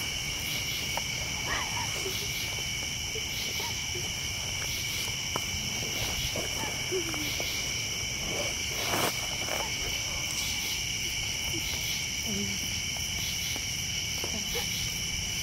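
A steady chorus of night insects trilling, a continuous pulsing high buzz in two bands, with a brief soft noise about nine seconds in.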